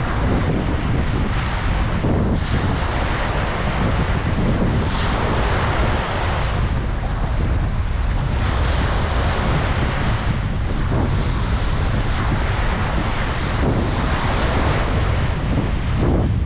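Ocean waves breaking on a beach in a steady wash of surf, swelling every few seconds, with wind buffeting the microphone as a constant low rumble.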